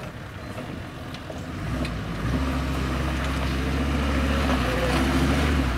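Off-road 4x4's engine running, building up about two seconds in to a louder, steady high-rev drone that holds to the end.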